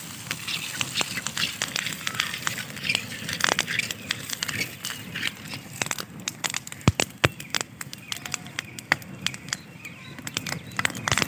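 Diesel fire burning in a kadhai full of popcorn over burning twigs, crackling with many small pops throughout, with two sharper cracks about seven seconds in.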